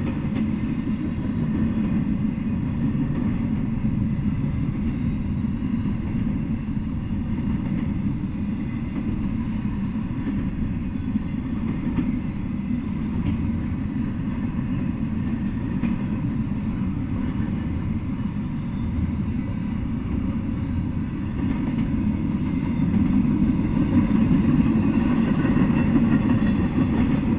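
Double-stack intermodal freight train rolling past, a steady low rumble of the cars on the rails that grows somewhat louder near the end.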